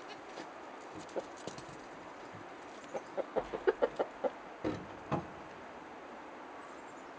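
A hen clucking: a quick, uneven run of about ten short clucks starting about three seconds in and ending a little after five seconds.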